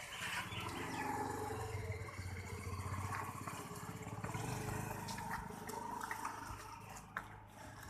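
Farmyard sounds of livestock, with a low, pulsing animal call through most of it and scattered short knocks.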